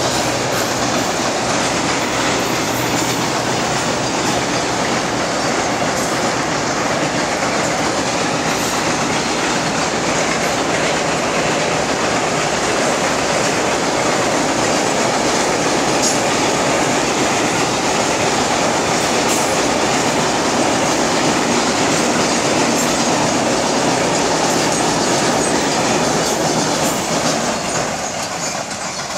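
Goods train of covered wagons rolling across a girder bridge: a loud, steady rumble with wheel clatter on the rails. It fades near the end as the last wagons and brake van pass.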